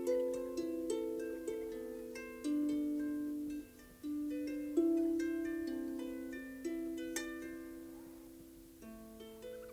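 Harp music: plucked notes and chords, each ringing on and slowly fading as the next is struck.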